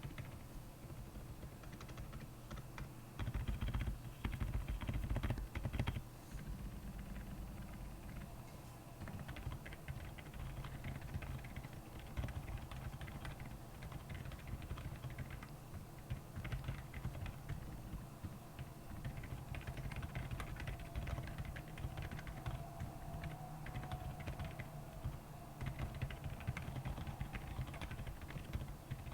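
Typing on a Royal Kludge R75 mechanical keyboard fitted with Akko silent penguin tactile switches: a continuous run of key presses, louder and denser for a few seconds near the start.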